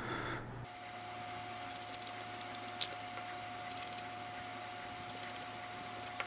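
Metal thumb nuts being spun off the threaded standoffs of a CPU water-block mounting bracket: three short spurts of fast, fine ticking, with one sharper click about three seconds in.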